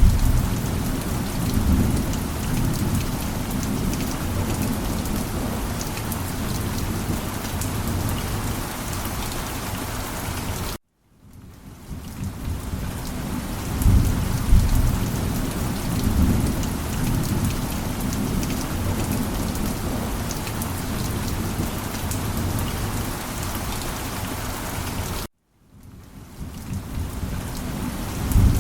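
Steady heavy rain with low rolls of thunder near the start, about halfway through and again near the end. Twice the whole sound cuts off suddenly and fades back in over a second or so: the seams of a looped ambience track.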